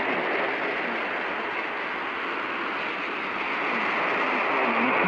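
Radio static: a steady rushing hiss over a radio receiver, with faint speech starting to come through again near the end.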